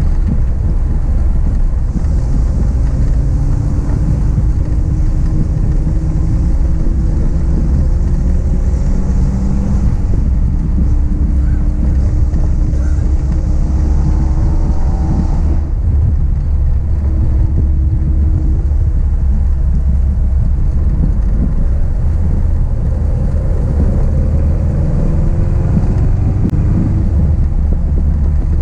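1966 Triumph Spitfire's four-cylinder engine running on the road with the top down, under heavy wind rumble on the microphone. The engine note climbs twice, the second time falling away suddenly about halfway through.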